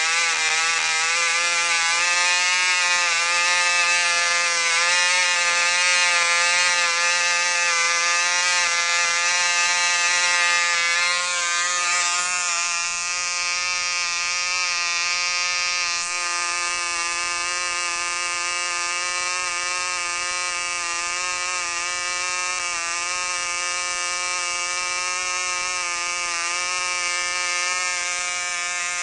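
McCoy 19 two-stroke model glow engine running steadily on nitro-free fuel, swinging a 9x4 propeller at about 10,500 rpm: a loud, even, high-pitched buzz. It eases slightly lower and quieter about twelve seconds in and again about sixteen seconds in.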